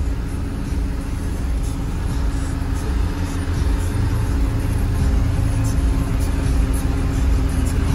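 A vehicle driving on a rough dirt road, heard from inside the cabin: a steady low rumble of engine and tyres with a constant hum, and occasional light rattles.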